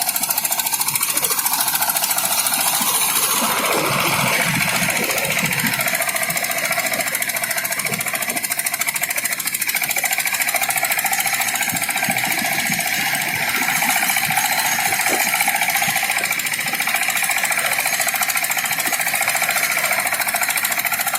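Motorised rice threshing machine running steadily with a loud, even mechanical noise from its engine and spinning threshing drum. A higher steady whine joins about four seconds in.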